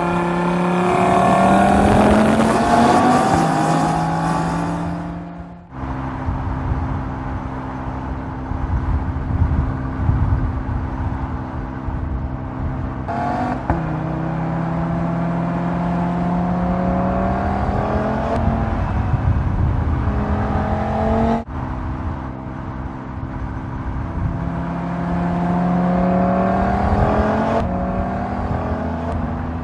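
Audi RS Q3's 2.5-litre turbocharged five-cylinder engine and exhaust accelerating, the pitch climbing in several long runs. It cuts off abruptly three times and picks up again.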